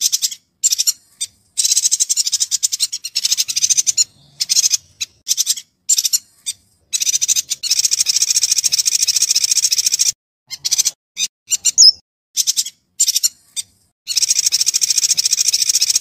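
Yuhina song: rapid, high chattering trills in bursts of varying length, from short notes to runs of two or three seconds, separated by brief silences. A single loud clear note stands out about twelve seconds in.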